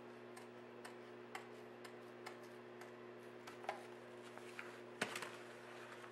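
Light, irregular clicks and taps from locking pliers and vinyl headliner material being handled against the steel windscreen frame of a classic Mini, with a sharper knock about five seconds in. A steady electrical hum underlies it.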